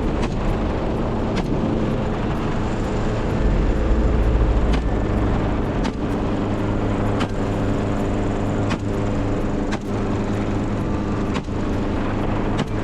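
Steady engine drone of a helicopter in flight, with brief breaks every second or so.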